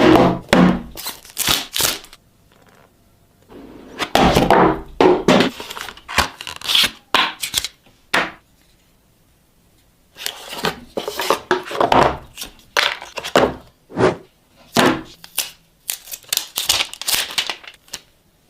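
Packaging of an Oppo Find X6 Pro phone being handled and opened: bursts of tearing and crinkling with soft thunks, coming in clusters broken by two short pauses.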